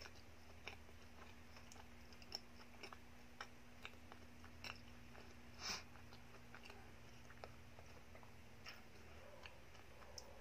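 Soft, wet mouth clicks of someone chewing a chocolate-glazed donut with the mouth closed, with one slightly louder smack about halfway through. A steady low hum runs underneath.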